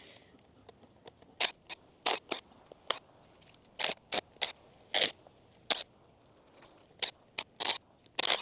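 A dozen or so short, irregular crunching scrapes as the wooden form is worked loose from the edge of a freshly cured concrete slab.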